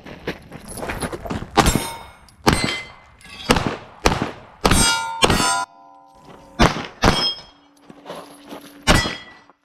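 A run of about nine pistol shots at uneven intervals, with steel targets clanging as they are hit. After several of the hits the steel plates keep ringing with a lingering tone.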